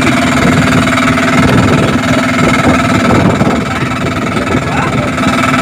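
Small engine-driven generator running steadily at a constant speed, a loud, unchanging hum.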